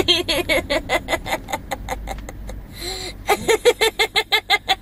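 A young girl giggling uncontrollably: rapid, high-pitched bursts of laughter in two long runs, broken by a short pause for breath about two seconds in.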